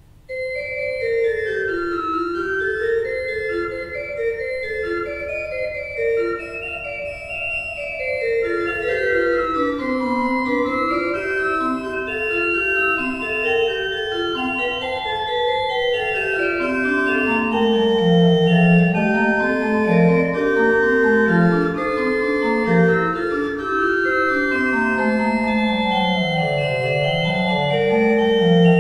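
Organ postlude starting suddenly, with fast running lines over a bass that moves lower in the second half.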